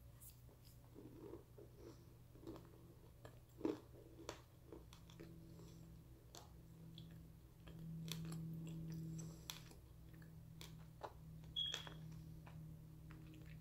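Faint chewing of a piece of raw white crumby clay: soft wet mouth clicks and crackles with no real crunch, one sharper click a few seconds in. A low steady hum sits underneath, louder for a moment near the middle.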